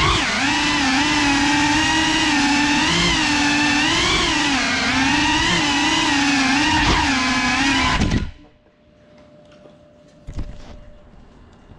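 Small FPV drone's brushless motors whining, heard from the drone itself, the pitch rising and falling with the throttle. The whine cuts off sharply about eight seconds in as the motors stop, and a few faint knocks follow.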